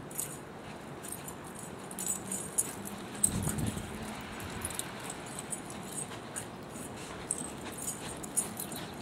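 A greyhound and a cattle dog playing in snow, with the jingle of metal collar tags in repeated clusters as they run and wrestle, and a short low rumble about three seconds in.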